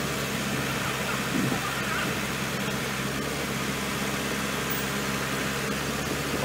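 Truck-mounted crane's diesel engine running steadily at idle, driving the hydraulic crane while the boom holds a load.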